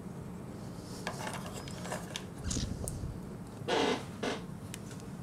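Small clicks and taps of a plastic Iron Factory Dubhe action figure being handled and set into a pose on a textured mat. A short, louder hissing sound comes about four seconds in.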